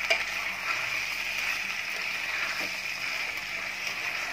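Potatoes, onions, diced tomatoes and peas sizzling steadily in oil in a stainless steel pot as they are stirred with a metal spoon. The spoon clicks against the pot just after the start.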